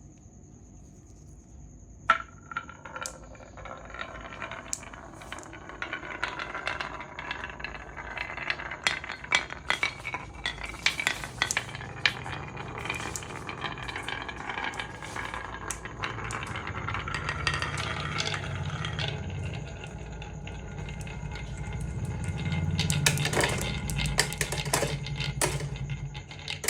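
Marbles rolling and clicking down a marble run: a sharp click about two seconds in, then a long run of rattling clicks over a rolling rumble that grows louder in the second half.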